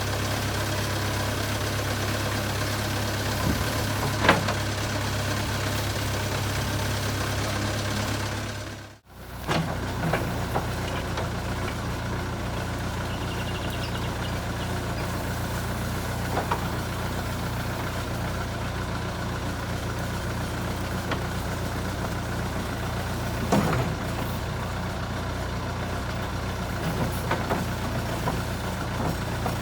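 JCB 3CX backhoe loader's diesel engine running steadily, with a few sharp clanks. The sound drops away briefly and returns about nine seconds in.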